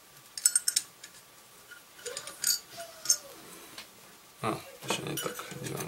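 Small metal washers and nuts clicking and clinking as they are picked up off a table and fitted onto a metal lamp base: a quick cluster of light clicks about half a second in, a few more a couple of seconds later, then denser handling noise near the end.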